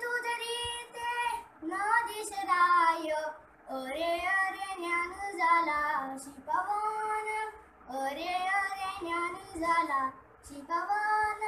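A boy singing a Marathi devotional abhang alone, in sustained phrases of a second or two with held, bending notes and short breaks between.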